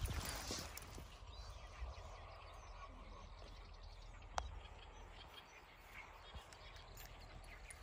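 Faint outdoor ambience with scattered distant bird calls. A brief rustle fades out in the first second, and a single sharp click comes about four and a half seconds in.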